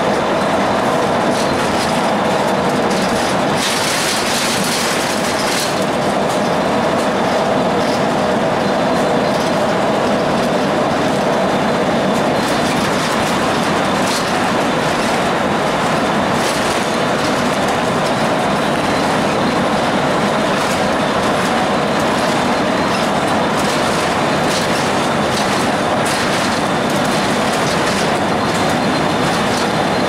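Cabin noise of a Blue Bird CS transit bus travelling at highway speed: its Cummins ISC diesel running steadily under road and wind noise, with many small clicks and rattles. A brief rise in hiss comes about four seconds in.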